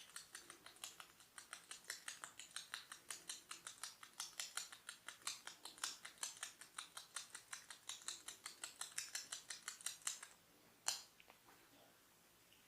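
Fast, even run of faint crisp clicks from a barber working on the head, about five a second, stopping about ten seconds in, then one louder single crack.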